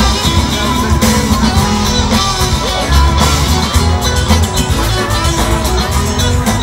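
Live rock band playing, with acoustic and electric guitars, bass guitar and drum kit.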